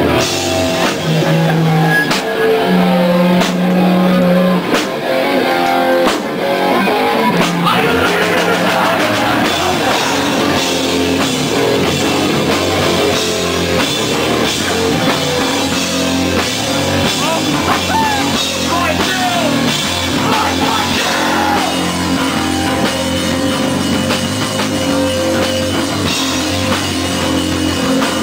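Hardcore punk band playing live: loud distorted guitars, bass and drum kit. Held notes ring for the first several seconds before the band moves into a denser, busier passage about seven seconds in.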